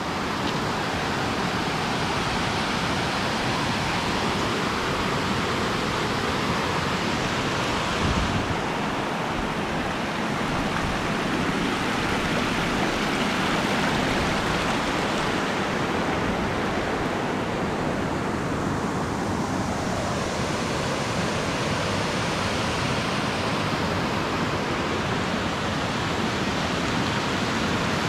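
Waterfall's falling water rushing steadily in an even, unbroken hiss, with one brief thump about eight seconds in.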